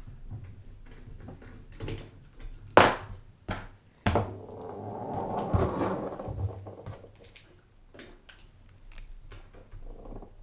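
Handling noise from working on computer parts: scattered clicks and knocks, two sharp knocks about three and four seconds in, then a few seconds of rustling.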